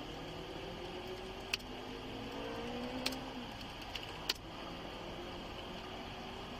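A car engine running over a steady bed of background noise, its tone rising slowly, with four short sharp clicks in the middle of the stretch.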